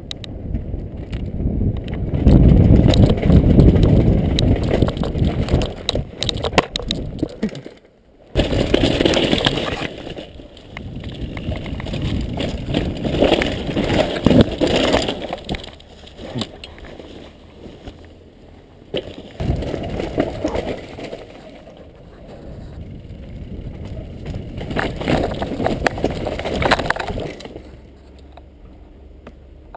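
Downhill mountain bike clattering and rattling over loose slate and rocks at speed, with wind buffeting the microphone. The sound breaks off about eight seconds in and picks up again on a rocky woodland section; near the end the run ends in a crash into a pile of branches.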